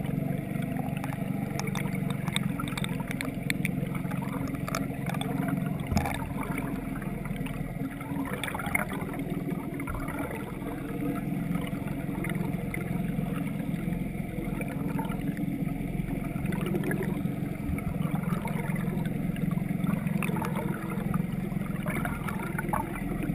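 Steady low hum of a boat motor with rushing water, heard through a submerged camera as the bait is trolled. Scattered light clicks, with a sharper knock about six seconds in.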